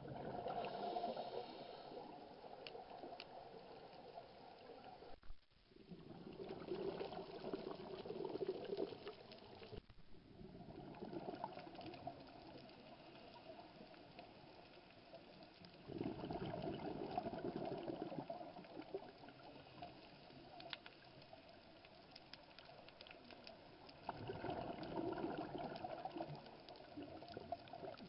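Scuba diver's exhaled bubbles gurgling up from the regulator, heard underwater: four bubbling bursts of two to four seconds each, about eight seconds apart, with quieter stretches between breaths.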